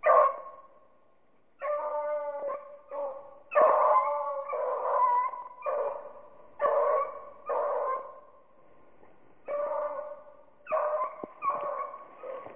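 Beagles baying in repeated drawn-out cries, about a dozen over the stretch, some voices overlapping: hounds giving tongue while running a rabbit's track.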